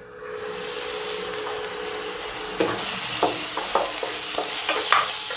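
Chopped chilli, ginger and garlic sizzling in hot oil in a frying pan, the hiss starting suddenly as they go in and then holding steady. From about halfway through, a wooden spatula scrapes and taps against the pan as the aromatics are stir-fried.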